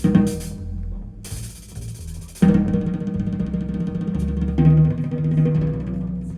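Recorded music with drums and deep bass, played back through a Gryphon Audio Designs high-end stereo system of amplifier and loudspeakers. The music comes in louder and fuller suddenly about two and a half seconds in.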